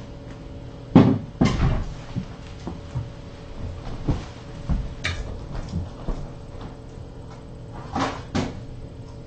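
Kittens jumping and scrambling about a carpeted cat tree and the floor: a series of thumps and knocks, two loud ones about a second in, a sharper knock near the middle and two more near the end.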